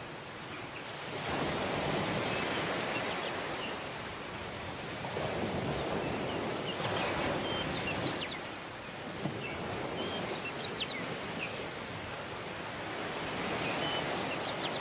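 Ocean waves washing in on a shore, the rush swelling and falling back in slow surges every few seconds.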